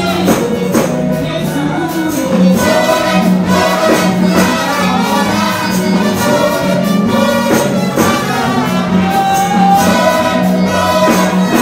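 Gospel song sung live into microphones by a woman and a man, over amplified church band music with a steady beat and a held low note.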